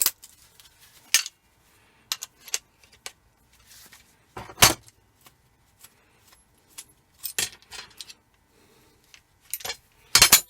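Small pieces of scrap metal clinking and tapping as they are handled, worked and dropped into sorting tubs: a scatter of irregular sharp clicks, the loudest about halfway through and near the end.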